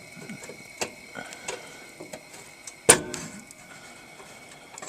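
Scattered small metallic clicks and taps of a hex driver working the screw that holds a furnace flame sensor, with one sharp click about three seconds in.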